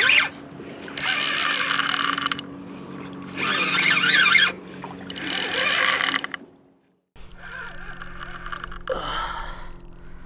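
Spinning reel's drag (Penn Spinfisher VI 8500) buzzing as a hooked shark pulls line off it, in four long surges, then quieter.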